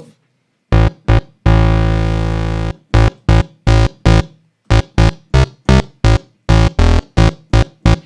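Synthesizer house bass played as a run of short, punchy notes, with one longer held note about a second and a half in. The patch is two square-wave oscillators tuned a fifth apart over a sub-oscillator an octave below.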